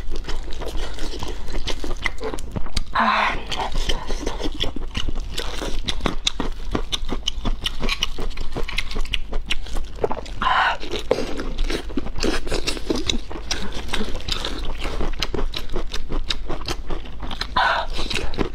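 Close-miked wet chewing and mouth smacking while eating braised lamb sausage, dense with small clicks throughout. Three louder short bursts come about three seconds in, ten seconds in and near the end.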